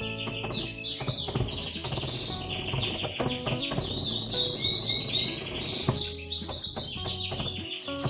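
Many small birds chirping and singing at once, a dense chorus of quick high chirps that never stops.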